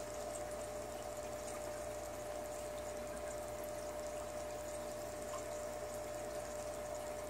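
Aquarium filter running: a steady trickle of falling water with a constant hum under it.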